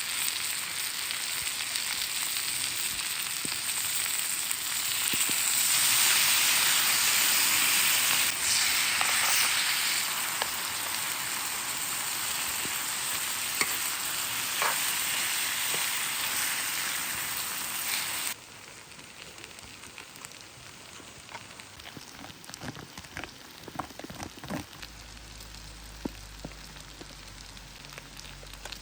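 Food frying on a heavy iron plate over a campfire, a steady loud sizzle that swells in the middle. About two thirds of the way through the sizzle cuts off abruptly, leaving a quieter hiss with scattered small crackles and ticks.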